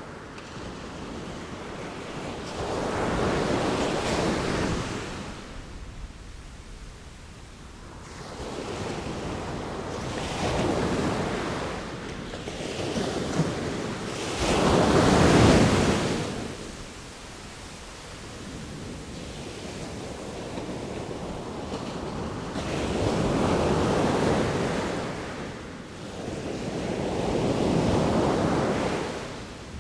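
Sea waves breaking and washing in, swelling and fading in slow surges every few seconds, the biggest about halfway through.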